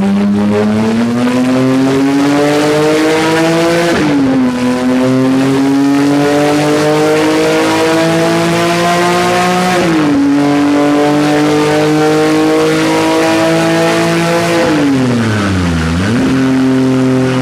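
A 2020 Porsche 718 GT4's 4.0-litre flat-six, breathing through an Akrapovic exhaust with its particulate filter removed, pulls through the gears on a rolling road. The engine note climbs steadily and drops sharply at upshifts about four and ten seconds in. Near the end it falls away as the throttle closes, then settles into a steady note.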